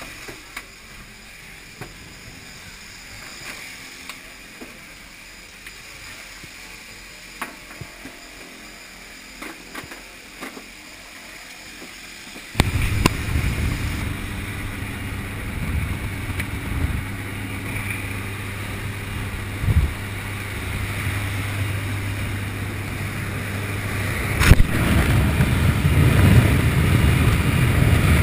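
Aircraft engine droning inside a skydiving jump plane, fairly quiet at first with small clicks and rustles. About twelve seconds in, the noise jumps suddenly to a loud engine drone and rushing air as the exit opens, and it grows louder toward the end, with one sharp knock a few seconds before the end.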